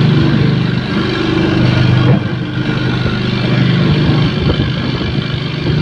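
Grinding machine running steadily, a low motor hum under a broad grinding noise, with a brief jolt about two seconds in.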